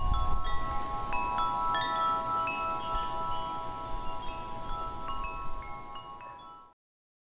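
Tinkling chimes: many short, bright bell-like notes scattered over a held ringing chord, fading away and stopping abruptly near the end.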